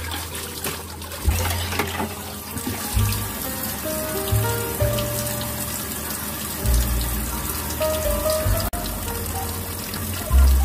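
Water running from a kitchen tap into a steel sink as dishes are washed and rinsed by hand, under background music with deep bass notes and a simple melody.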